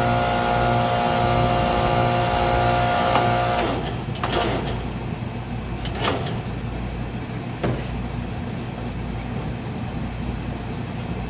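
Hydraulic power unit pumping a rebuilt hydraulic bead breaker under pressure, with a steady pitched whine while the arm pushes out. A little over three seconds in the whine stops, leaving a low steady hum, and a few sharp metallic clunks follow.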